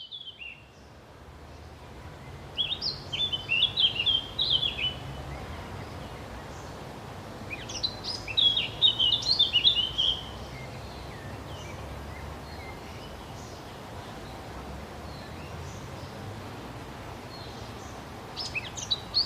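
A songbird singing: two bursts of rapid high chirping phrases a few seconds apart, each lasting about two seconds, with another starting near the end, over steady low background noise.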